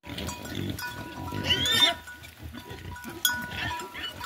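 A herd of pigs and piglets grunting as they crowd around, with one loud squeal about a second and a half in. Background music with held tones plays underneath.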